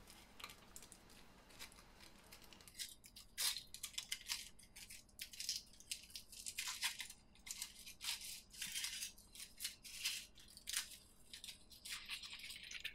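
Foil wrapper of a Kinder Surprise chocolate egg crinkling and tearing as it is peeled off by hand. The rustles are faint, short and irregular, and begin about three seconds in.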